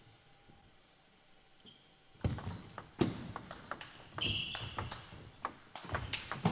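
A table tennis rally: the celluloid ball clicking off the bats and the table in a quick run of sharp hits, starting a little over two seconds in after a quiet pause for the serve. Short squeaks of shoes on the court floor come between the hits.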